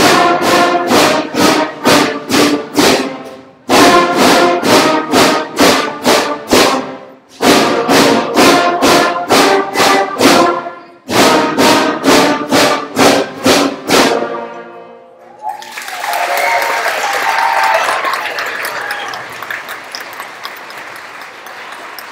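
Beginning school concert band of brass and wind players playing short, accented notes, about two a second, in four phrases with brief breaks. The last note dies away about fourteen seconds in and audience applause follows, fading toward the end.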